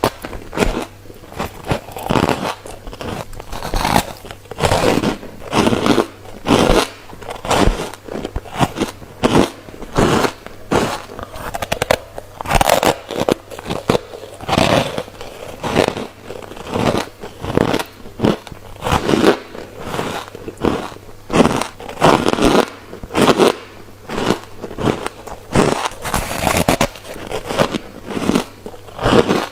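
Close-up biting and chewing of refrozen freezer frost, crisp crunches repeating about once a second.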